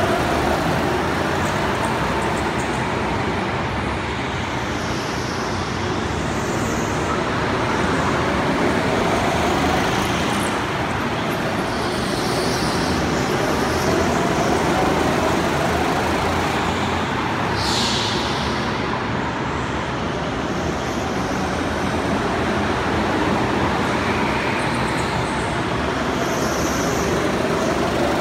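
Go-karts running laps on an indoor track: a steady wash of motor and tyre noise, with whines that rise and fall in pitch. A brief high squeal about two-thirds of the way through.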